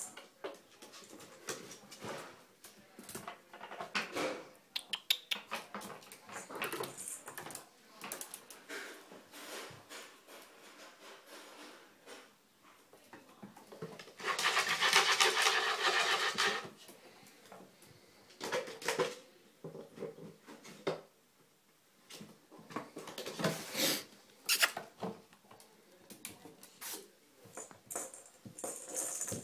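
Pet ferrets playing in a bathtub, their claws clicking, skittering and scraping on the tub in short irregular bursts. A louder, noisier sound lasts about two seconds near the middle.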